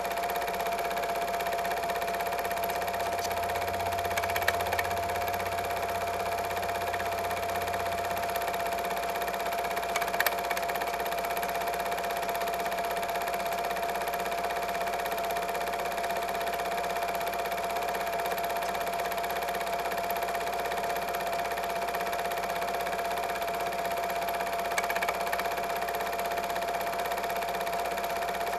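Steady mechanical running noise from the old film transfer, with a constant high whine over an even hiss and a few faint clicks about four, ten and twenty-five seconds in.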